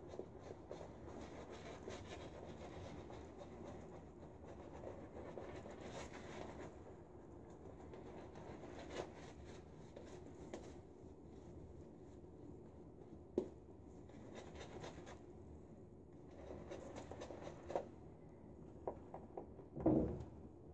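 A 26 mm silvertip badger shaving brush scrubbing lather onto a bearded face: a faint, steady bristly scratching. A few light taps come through it, and a louder knock comes near the end.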